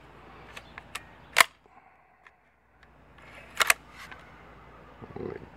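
Metallic clicks and clacks of a .22LR straight-blowback Dragunov-style rifle action being cycled by hand, the bolt carrier drawn back and run forward under its recoil spring. There is one sharp click about a second and a half in and a close double clack about three and a half seconds in, with lighter ticks around them.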